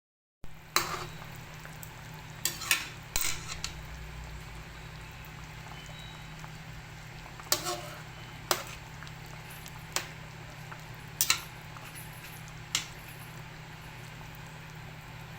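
Food frying in a pan with a steady sizzle, while a metal utensil clinks and knocks against the pan about ten times at irregular intervals as it is stirred.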